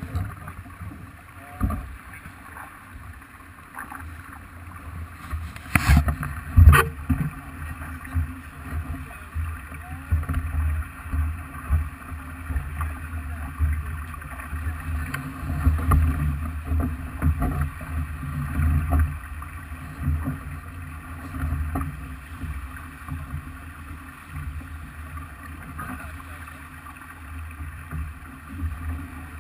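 Sailing yacht under way: uneven wind buffeting and water rushing along the hull, with two sharp knocks less than a second apart about six seconds in.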